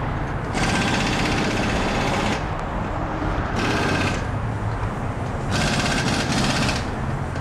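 Pneumatic impact wrench rattling in three bursts, the first nearly two seconds long, a short one in the middle and another over a second near the end, as wheel lug nuts are run on or off. A steady low hum runs underneath.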